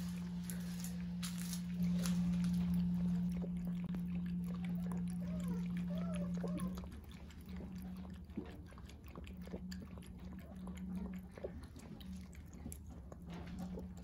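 Jindo puppy lapping water from a bowl: a string of small wet licking clicks. Under it a steady low hum, loudest in the first half, drops away about seven seconds in and then comes and goes.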